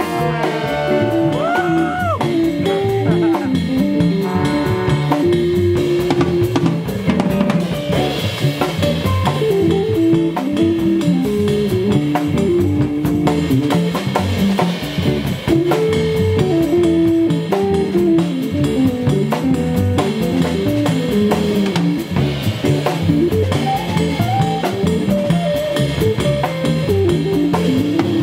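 Live jazz ensemble playing: a drum kit with rimshots, snare and bass drum, with electric guitar and double bass carrying the music. The saxophones drop out in the first few seconds.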